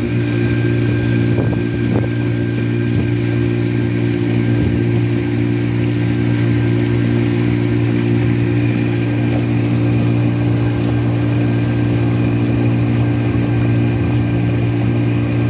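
Outboard motor of a small open boat running steadily at cruising speed: an unchanging drone, with the rush of water and wind past the hull.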